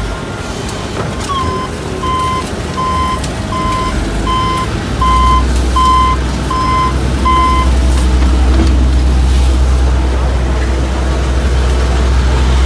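A construction vehicle's reversing alarm beeping about nine times, a little over one beep a second, then stopping, over the steady low rumble of heavy engines.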